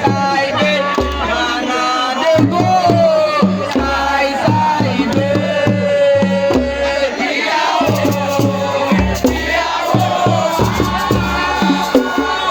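Music with a lead singing voice over a driving beat, with crowd voices along with it.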